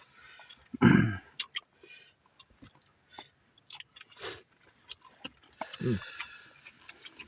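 Close-up eating sounds: chewing, lip smacks and small clicks as grilled chicken is eaten off the bone by hand, with two short vocal sounds, the louder about a second in and another near six seconds.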